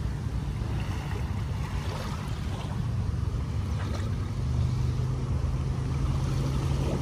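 Small, gentle waves lapping on the sand at the water's edge, under a steady low rumble of wind on the microphone.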